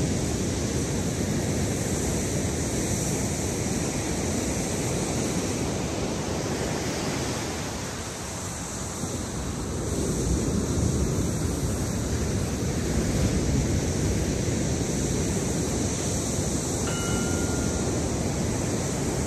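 Steady wash of ocean surf mixed with wind rumbling on the microphone, easing briefly about eight seconds in and swelling again about ten seconds in.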